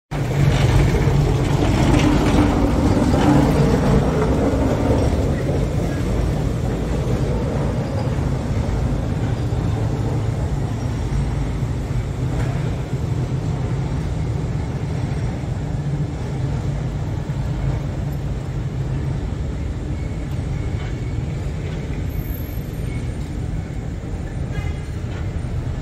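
A yellow Lisbon funicular tram car rolls past close by on its street rails. It is a rumble that is loudest in the first few seconds and fades slowly as the car moves away along the tracks.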